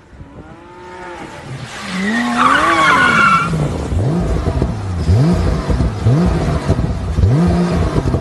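A car: a squealing whine that rises and falls about two seconds in, then the engine revved in short blips, each a quick rise in pitch, about once a second.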